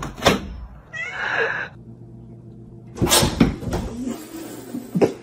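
A domestic cat meows once about a second in. About three seconds in come a couple of sharp knocks.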